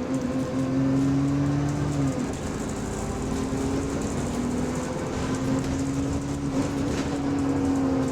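Bus drivetrain heard from inside while under way: road and engine noise with a steady whine from the differential, the subtle odd noise of this bus. Its pitch drifts a little with speed, and it drops out briefly about two seconds in before coming back.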